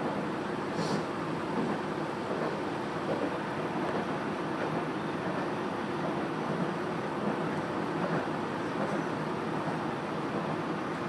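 Cabin noise of an Amagi Railway diesel railcar under way: a steady rumble of the engine and the wheels running on the track, with a brief high click about a second in.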